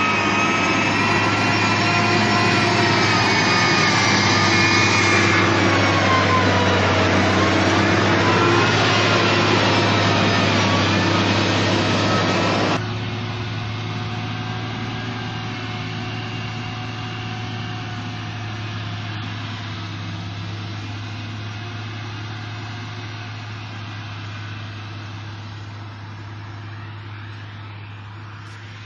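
A motor vehicle engine running with a steady low hum and slowly shifting pitch. It drops suddenly in level about 13 seconds in, then fades gradually.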